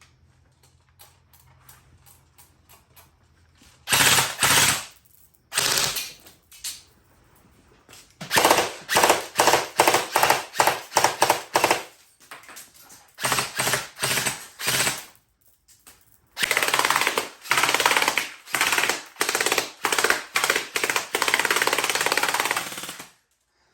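Airsoft gun firing on full auto in several bursts of rapid shots. The longest is a continuous burst of about six seconds near the end.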